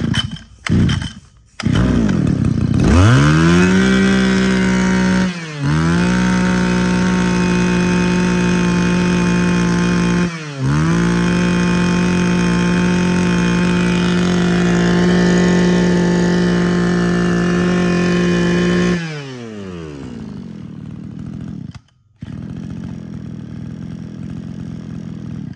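Mitsubishi TL23 brush cutter's 23cc two-stroke engine: a couple of short bursts, then it catches and revs up to a high, steady whine. The throttle is eased off briefly twice, and near the end it drops back to a lower idle.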